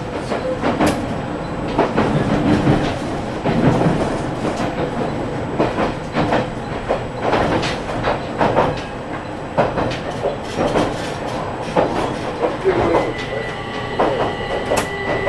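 JR Kyushu 815 series electric train running, heard from inside the car: a steady wheel-and-rail rumble with repeated sharp clicks as the wheels pass over rail joints. Near the end a steady electric whine from the VVVF traction inverter joins in.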